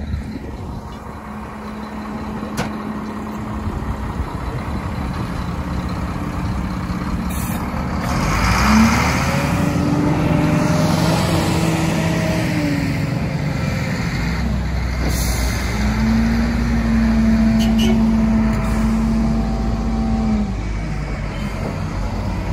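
Heavy diesel engines of a semi-truck and a wheel loader running while the truck is pulled free on ice. The engine note rises twice and holds high for several seconds each time, as when working under load, with a couple of short hisses like air brakes.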